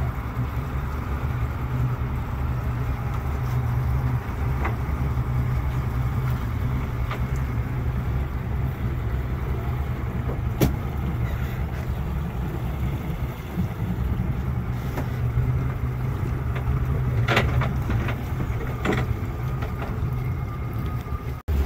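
Small boat's engine idling steadily, with a few short sharp knocks, one about ten seconds in and two more near the end.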